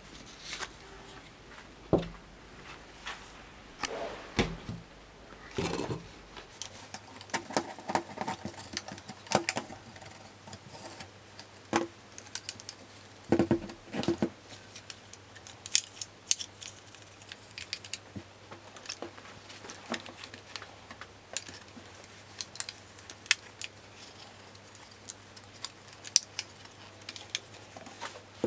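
Plastic Dyson DC62 vacuum parts handled and set down on a table: scattered irregular clicks and knocks, with cloth rubbing as the parts are wiped dry.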